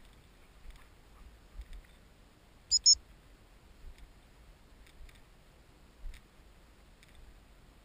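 Gun-dog whistle blown twice, two short high-pitched pips in quick succession about three seconds in, over faint scattered clicks.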